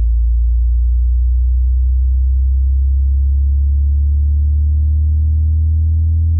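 Very deep electronic bass test tone, a steady sine sweep rising slowly in pitch, played to test subwoofers and speakers.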